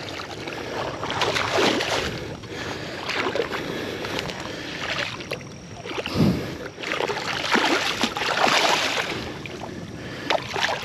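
Water splashing and sloshing in irregular surges as a big hooked catfish is pulled in to the creek bank, with one heavier splash about six seconds in.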